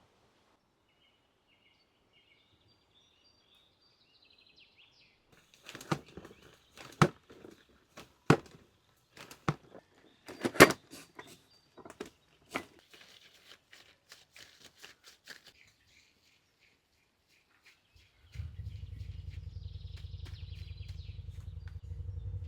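Faint bird chirps, then a run of sharp knocks about a second apart, loudest about halfway through, then a steady low hum that starts about three-quarters of the way in.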